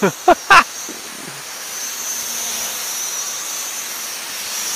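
Florld F16W folding quadcopter's motors and propellers whining in flight: a steady hiss with a wavering high whine. A couple of short vocal exclamations come in the first half-second.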